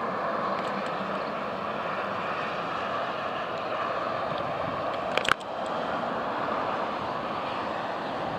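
Steady running noise of a tram, with one sharp click a little past five seconds in.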